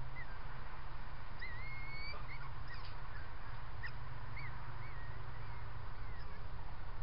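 Steady hiss and low hum of a trail camera's microphone, with faint short, high chirps and whistles scattered through it, including a longer rising whistle about a second and a half in.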